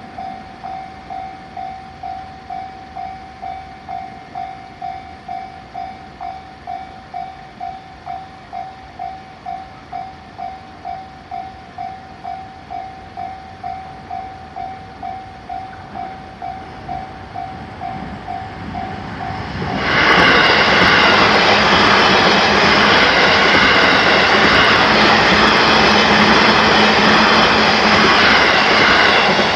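Japanese level-crossing warning bell ringing in a steady, even electronic clang. About twenty seconds in, an electric train passes close by with a loud rush of wheel and rail noise that drowns out the bell until just before the end.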